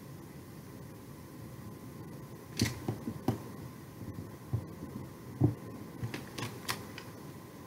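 Hands handling a clear acrylic stamp block and paper on a craft table: a scatter of sharp clicks and soft knocks starting about two and a half seconds in, the loudest knock about five and a half seconds in, over a steady low hum.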